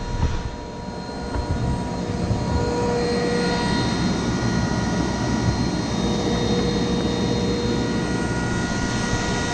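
Rosback 880 single-clamp perfect binder running: a steady machine drone with several high whining tones over it and a few knocks near the start.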